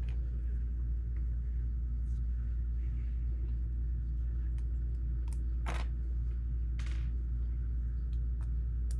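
A few light clicks and clatters of plastic Lego pieces being handled, over a steady low hum.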